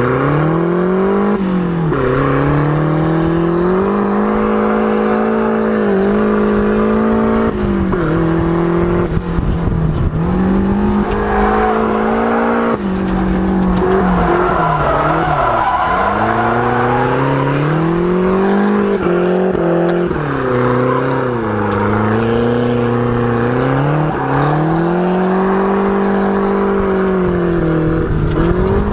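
Car engine being driven hard, heard from inside the open cabin: its note climbs and drops again and again every few seconds as the throttle is worked through a drift run.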